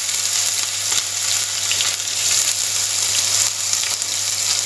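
Finely chopped ginger frying in hot oil with cumin seeds in a pan, a steady sizzle with small pops: the ginger going into the cumin tempering (tadka).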